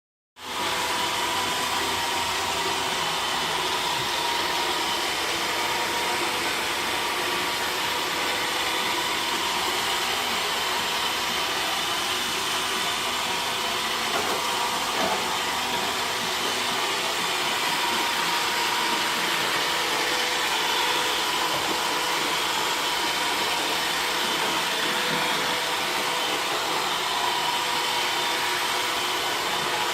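iRobot Roomba 440 robot vacuum running: the steady hum and whine of its vacuum and brush motors, holding an even level throughout.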